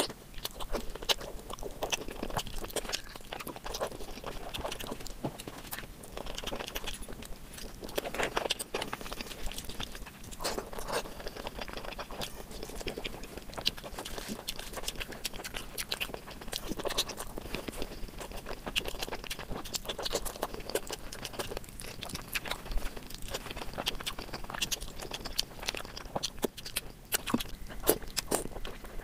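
Close-miked ASMR eating sounds: a person chewing mutton curry with rice, a dense, irregular run of short clicks and smacks with no let-up.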